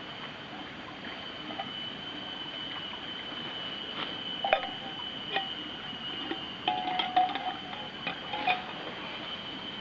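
Small metal billy can clinking, its wire bail handle knocking against the pot and ringing briefly, a scatter of clinks from about four seconds in. A steady high-pitched whine runs underneath.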